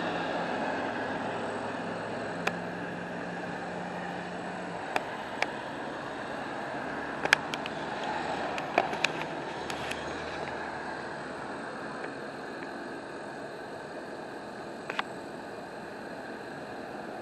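A car going by on the street, its tyre and engine noise fading away over several seconds. Several sharp clicks or knocks are scattered through it, most of them in the middle.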